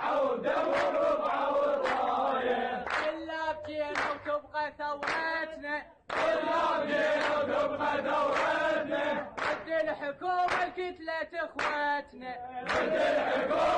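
A crowd of young men chanting a protest chant in call and response. A single voice leads a line, and the crowd answers loudly in unison, twice, with hand claps.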